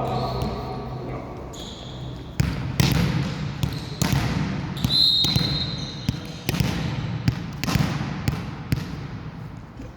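Indoor volleyball play: a series of sharp smacks of the ball being hit and striking the floor, with voices, and a referee's whistle blown about five seconds in.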